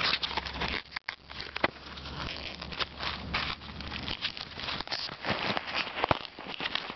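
Handling noise: irregular clicks, crackles and rustling as a hand grips and moves a plastic RC plane while the camera is shaken about.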